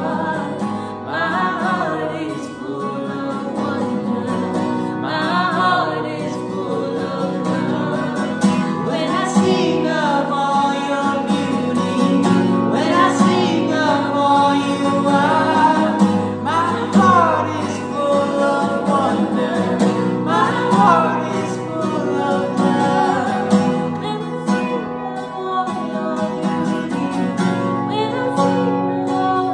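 Worship song: several voices, women's among them, singing together over a strummed acoustic guitar.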